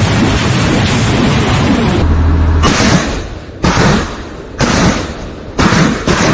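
BM-21 Grad multiple rocket launcher firing a salvo. A continuous roar of rockets leaving the tubes for about two seconds, then separate launch blasts about once a second, each a sudden rush that fades quickly.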